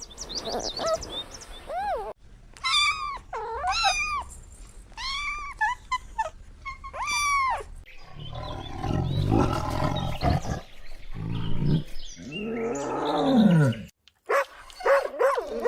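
A series of animal calls from several spliced clips. First come short calls that rise and fall in pitch, several in a row. Then lower, rough calls follow, ending in a long falling call.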